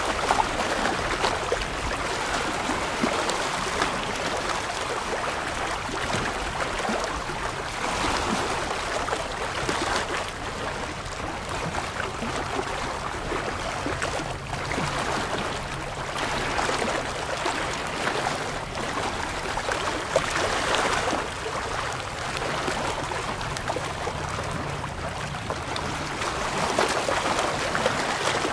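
Small waves lapping and splashing against shoreline rocks: a steady wash of water that swells every few seconds as a wave breaks among the boulders.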